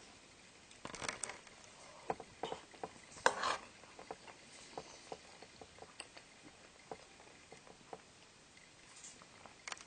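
Someone eating soup with a spoon: a scatter of small clicks and taps of the spoon against the bowl, with a couple of louder slurps about one and three and a half seconds in.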